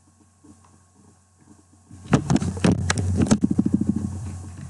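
Computer mouse scroll wheel ticking as a document is scrolled: a few sharp clicks about two seconds in, then a fast, even run of ticks that fades away.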